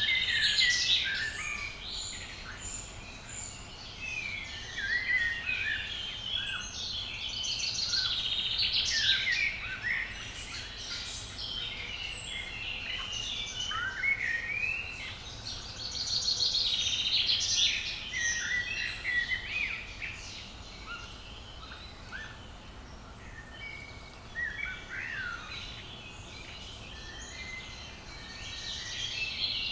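Several songbirds singing, overlapping chirps and whistled song phrases, with a louder song every eight seconds or so over a faint low background rumble.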